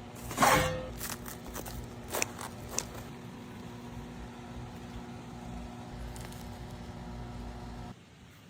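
Food-prep handling sounds in a kitchen. A loud scrape or rustle comes about half a second in, followed by a few sharp taps or clicks, over a steady low hum that stops shortly before the end.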